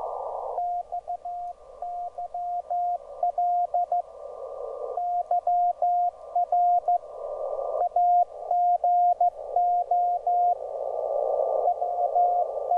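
Morse code (CW) signal heard on a shortwave WebSDR receiver: a tone of about 700 Hz keyed in dots and dashes over band static. An audio filter narrows the static to a band of hiss around the tone, and the hiss swells as the equalizer's peak is boosted.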